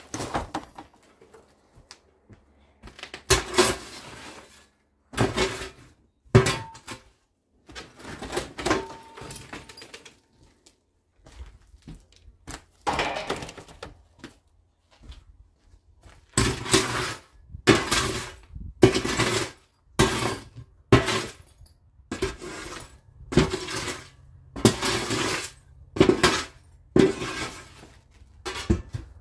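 Burnt debris being cleared out by hand: clattering and crashing of broken pieces being picked up and tossed, with some glassy, crockery-like knocks. Scattered at first, then about one clatter a second through the second half.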